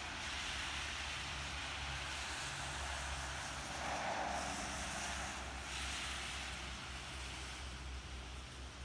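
Wind noise and the tyre hiss of a motorhome driving past on a wet road, swelling about four seconds in and fading toward the end.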